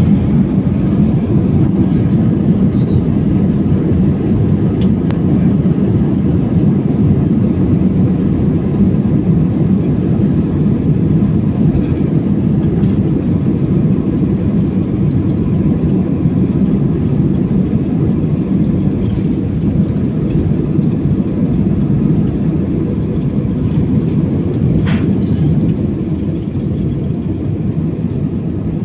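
Jet airliner's engines at takeoff thrust heard from inside the cabin: a loud, steady low rumble mixed with runway noise during the takeoff roll, easing a little near the end as the plane lifts off.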